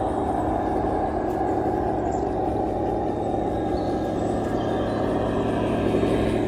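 Heng Long 1/16 Tiger 1 RC tank's built-in sound unit playing its engine-idle effect, a steady rumble that holds even and unchanged throughout.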